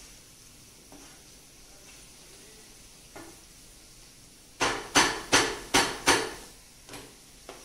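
A nylon spatula stirring masala in a non-stick frying pan over a faint sizzle, then knocking against the pan five times in quick succession about halfway through, with two lighter knocks near the end.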